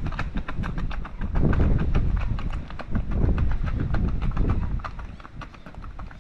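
A horse at its feed and hay, with many quick, irregular crunching clicks over low rumbling thuds.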